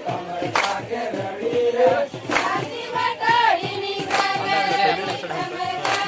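Several voices singing together in a devotional song, with sharp percussive hits every second or two.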